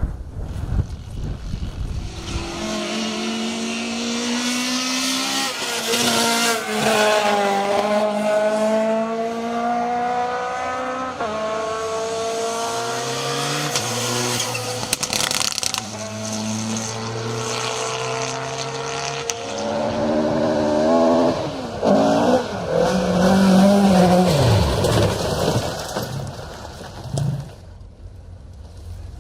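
Rally car engine at full throttle on a special stage, revs climbing and dropping back at each gear change, loudest as it passes about three quarters of the way through, then falling in pitch and fading near the end.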